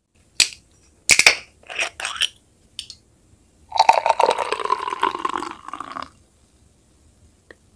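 Several sharp glass and bottle clicks and clinks, then about two seconds of liquid pouring into a drinking glass from about four seconds in, as soju and beer are mixed into somaek.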